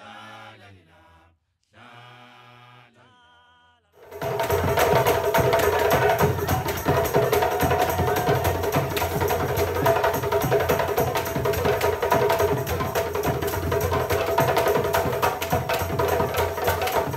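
A chanted song ends, then about four seconds in a live ensemble of African hand drums, djembes with a large bass drum, starts playing fast, loud, dense drumming that runs on unbroken.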